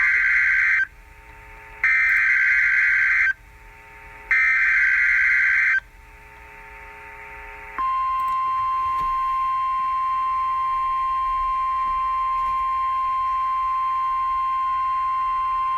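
NOAA Weather Radio Emergency Alert System broadcast. First come the SAME header data bursts, three loud bursts each about a second and a half long with short gaps between them. About eight seconds in, the steady single-pitch 1050 Hz warning alarm tone starts and carries on. The tones open an alert for a severe thunderstorm watch.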